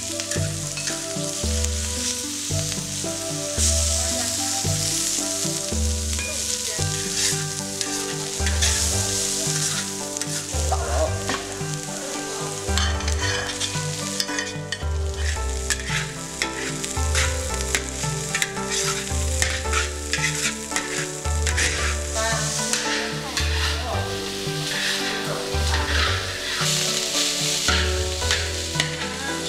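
Fried rice being stir-fried in a large wok: hot oil sizzling while a metal ladle scrapes and turns the rice and chopped chilli and green onion.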